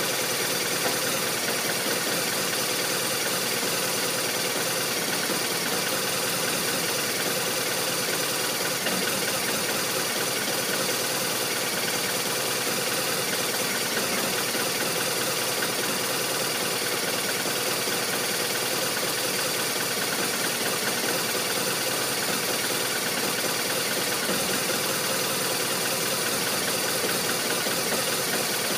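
BMW R1200RT motorcycle's boxer-twin engine idling at a steady speed with no revving. The owner takes the idle for a rough one.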